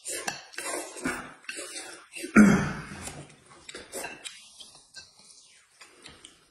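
Noodles being slurped and chewed by diners, a string of short, noisy sucks and mouth sounds, mostly in the first half, the loudest one about two and a half seconds in.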